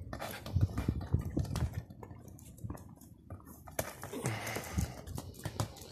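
A plastic football knocked about on stone paving by a Pomeranian puppy: repeated light taps and knocks, with a run of low thumps between about half a second and a second and a half in and a short scuff about four seconds in.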